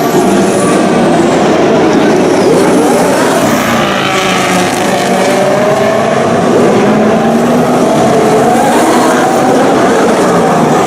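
2016 Formula 1 cars' 1.6-litre turbocharged V6 engines revving hard and passing, several engine notes overlapping and rising and falling in pitch as they accelerate and shift gear.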